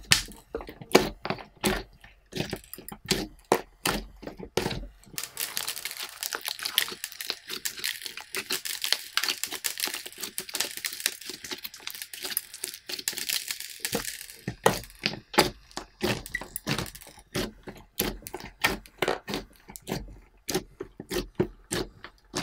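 Hands kneading and pressing a large mound of glittery slime, making wet clicks and pops. About five seconds in, a dense crackling starts as the slime is squeezed and stretched; it lasts roughly nine seconds before the separate clicks return.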